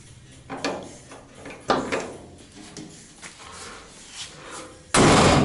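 Car door of a 1957 Buick Roadmaster fitted with a modern Camaro latch and catch: a couple of sharp latch-and-handle knocks, then the door slammed shut about five seconds in, hard enough this time to latch fully.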